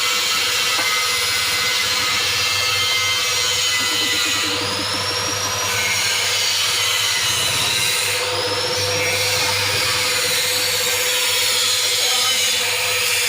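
Automatic ginger washing, peeling and pressing machine running: a steady motor hum under a loud grinding, scraping rush, with a high whine that rises and falls twice.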